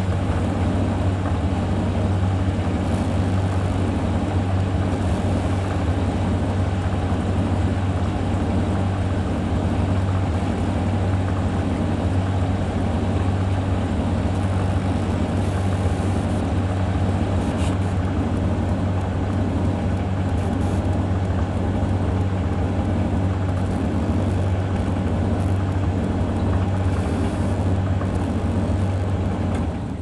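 A Hoover tumble dryer and a Samsung washing machine running side by side: a steady machine drone with a strong low hum, from the dryer's motor and fan and the turning drums. The Samsung is into its rinse after the main wash, while the Hoover is still on its main dry.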